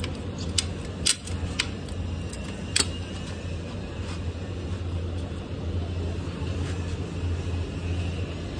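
Royal Enfield Bullet 350's single-cylinder engine idling steadily, with a few sharp clicks in the first three seconds.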